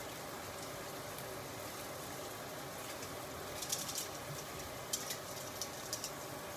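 Range hood fan running at full speed over lamb chops sizzling in a grill pan, a steady noise. A few sharper spatter crackles come from about four seconds in.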